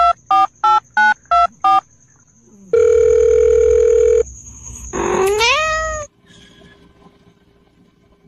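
Phone keypad dialing tones, a quick run of beeps, followed by a steady buzzing tone, then a single rising cry that sounds like a cat meowing.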